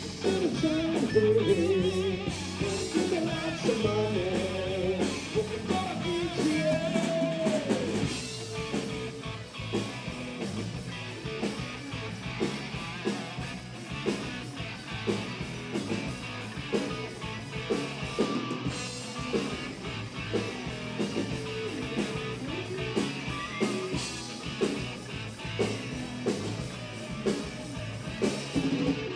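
Live rock band playing with electric guitar and drum kit. A bending melodic line leads for about the first eight seconds, then the band settles into a steady drum beat under the guitar.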